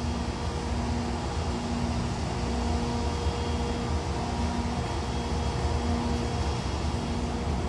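Idling locomotives' blowers and machinery running with a steady whirring drone, with a faint low hum that comes and goes about once a second.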